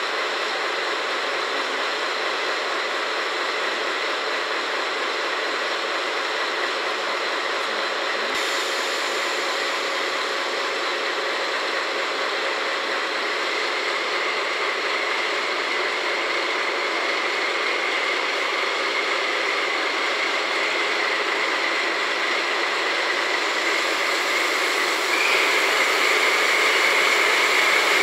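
JR West DD51 diesel-hydraulic locomotive standing and idling its twin V12 diesel engines: a steady engine drone with a high whine running through it. Near the end the sound gets a little louder and the whine a touch higher.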